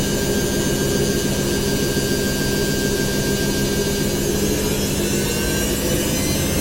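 Washing machine on its spin cycle, the drum spinning at speed with a steady hum and whine over a rumble.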